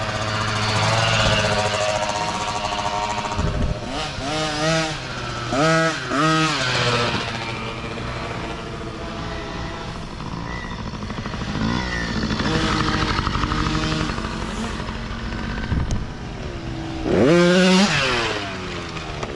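Mini dirt bike engines revving up and down as riders work the throttle through a race section, several times over. One bike passes close near the end, the loudest moment, its pitch dropping as it goes by.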